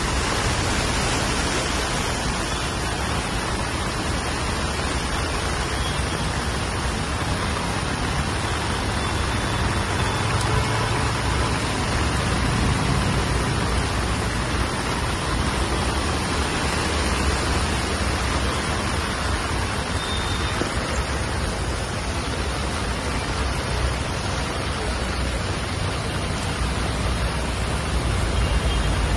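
Heavy rain pouring steadily on a flooded road, with cars driving through the standing water; the low rumble of passing vehicles swells about a third of the way in and again near the end.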